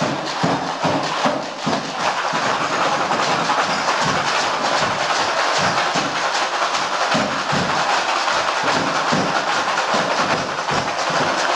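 Homemade cardboard-box drum kit beaten fast and without a break, a dense run of dull, hollow thuds.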